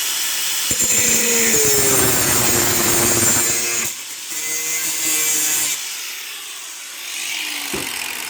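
Electric power tool cutting through a metal pipe to trim about 3/8 inch off. Its motor pitch drops as it bites into the cut, and it eases off about 4 s in and again about 6 s in.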